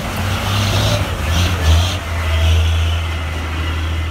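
Heavy dump truck's diesel engine pulling under load as it passes close by, a loud low drone that is loudest about two seconds in.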